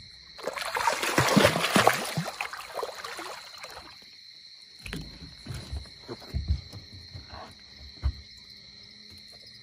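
Hooked catfish thrashing and splashing at the water's surface as it is hauled out, a loud splashing that lasts about three seconds, then a series of separate thumps and slaps as it flops on the boat's metal diamond-plate deck.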